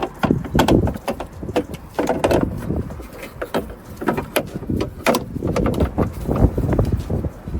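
Irregular clicks, knocks and rattles, several a second, as a replacement door check strap is worked and pushed through into a car door's frame.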